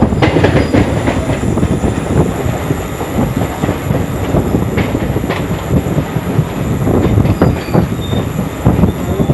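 Electric local train running, heard from inside the coach: a steady rumble with wheels knocking irregularly over the track.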